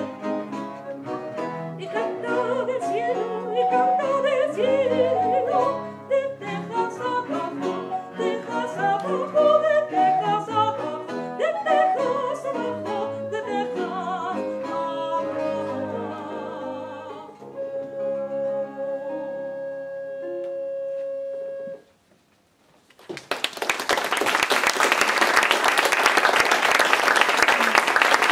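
A female singer with a baroque ensemble of recorder, viola da gamba, theorbo and baroque guitars, the piece ending on a long held note about three quarters of the way through. After a brief silence, an audience applauds.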